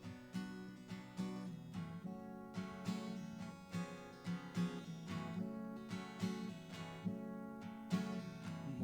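Acoustic guitar strummed in a steady rhythm, playing the instrumental introduction to a hymn.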